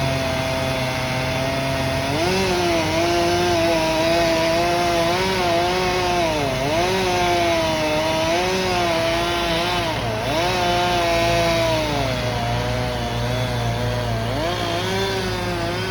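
Chainsaw running hard, revving up about two seconds in and then cutting wood, its pitch dipping and recovering again and again as the chain loads in the cut.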